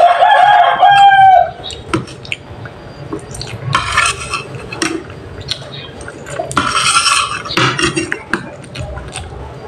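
Spoon and fork clinking and scraping on a plate while noodles are slurped up in two longer bursts, about four and seven seconds in. At the very start, a loud high held call lasting about a second and a half, dipping slightly at its end.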